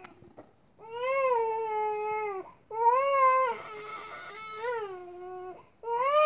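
A baby crying in three long wails with short breaks for breath between them. The middle wail turns rough and strained for about a second.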